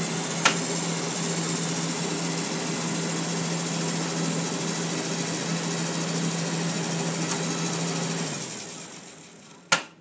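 Wall-mounted air conditioner running with a steady hum and rush of air, along with the whir of a small fan-driven shaft and gears spinning a little generator. A sharp click comes about half a second in. The whole sound winds down and dies away near the end, followed by another click.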